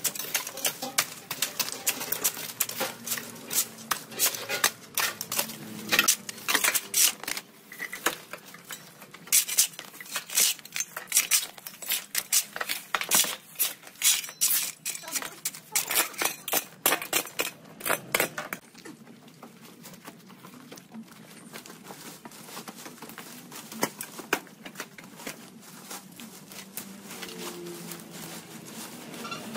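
Rapid, irregular clinking and knocking of hard objects, dense for about eighteen seconds and then thinning to an occasional knock.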